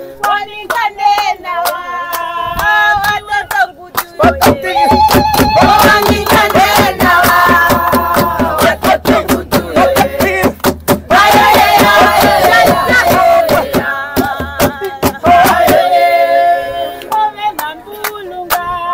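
A group of people singing together, accompanied by handclaps.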